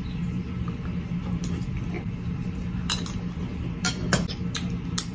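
Metal spoon and fork clinking against a ceramic soup bowl, a handful of sharp clinks that come more often and louder in the second half, over a steady low hum.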